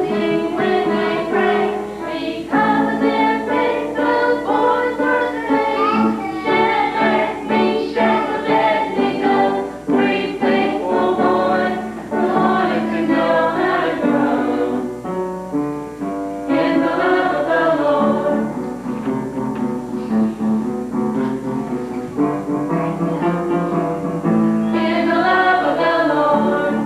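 A group of voices singing a song together in chorus, with instrumental accompaniment.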